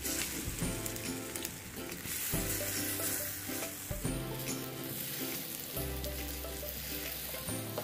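Hot oil sizzling steadily as food deep-fries in a pan, with background music.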